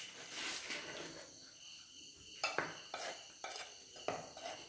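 Steel spoon stirring dry flour and cornflour in a bowl: soft scrapes and several light clicks of the spoon against the bowl, more of them in the second half. A faint steady high-pitched chirring runs underneath.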